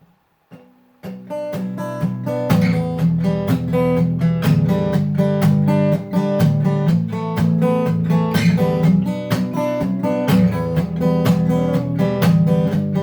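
Acoustic guitar strummed in a steady rhythm, playing a song's intro. It comes in about a second in and gets louder a second and a half later.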